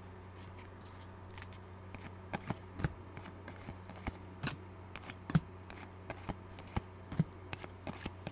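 2020 Panini Legacy football cards being thumbed through one by one in the hand, each card sliding and snapping against the stack in short, irregular clicks.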